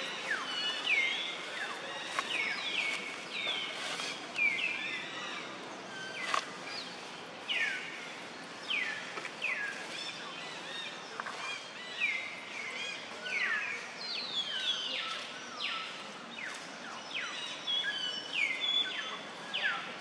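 Baby macaque crying with a run of short, high squeals that each drop sharply in pitch, coming about once a second.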